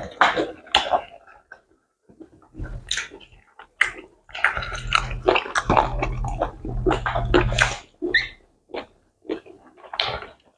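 Wet mouth sounds of eating pounded yam with slimy ogbono soup: irregular smacking, slurping and chewing noises. A low hum runs under them through the middle few seconds.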